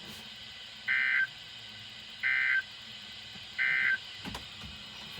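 Emergency Alert System End-of-Message data signal: three short, warbling digital bursts sent about a second apart, marking the close of the broadcast warning. A click follows near the end.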